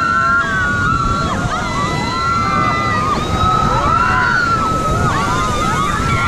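River rapids rushing and churning around an inflatable raft, with several rafters shouting and screaming together over the whitewater.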